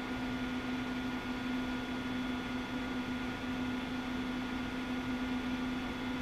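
Steady low hum over an even hiss: room tone, with no clicks or other events.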